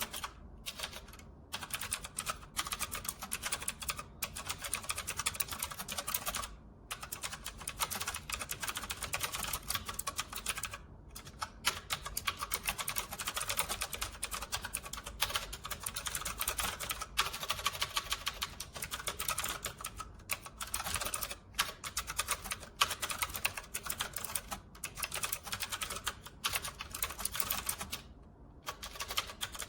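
Fast, continuous typing on a typewriter-style mechanical keyboard: rapid key clicks with a few brief pauses.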